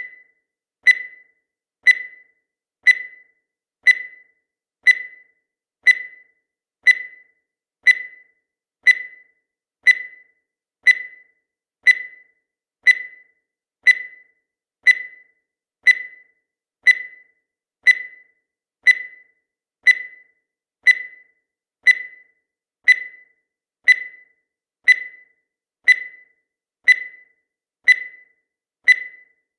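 Countdown timer sound effect: a short, high electronic beep once every second, each fading quickly.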